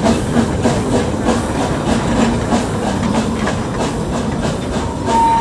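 Narrow-gauge steam locomotive working a train, its exhaust beating steadily about three times a second over a hiss of steam. A short high tone sounds near the end.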